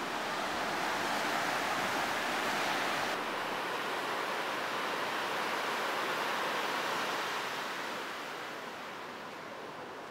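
Ocean surf breaking and washing up a sandy beach: a steady hiss of waves that turns a little duller about three seconds in and slowly fades near the end.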